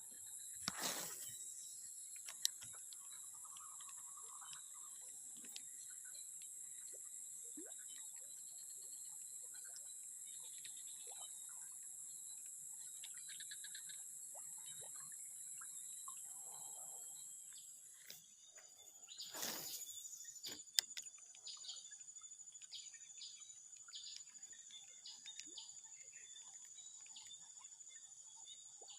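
Steady high-pitched chirring of insects, a cricket or cicada chorus, with two brief whooshes about a second in and near the middle, and scattered small clicks.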